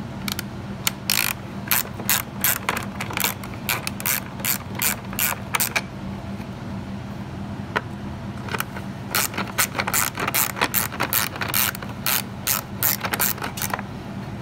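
Hand socket ratchet clicking in quick runs as plastic-stud speed nuts are backed off. There are two spells of ratcheting with a short pause around the middle.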